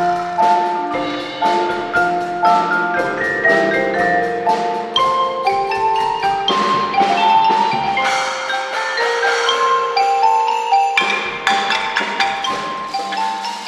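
Percussion ensemble playing a bright tune on mallet instruments, short ringing notes in several moving lines. Underneath runs a steady beat of sharp strikes, about two a second.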